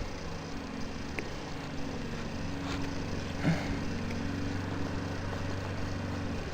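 A motor running steadily with an even, low hum, with a couple of faint clicks.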